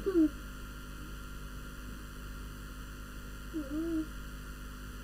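Steady electrical hum with faint background hiss. A short wordless vocal murmur comes just after the start and again a little before four seconds in.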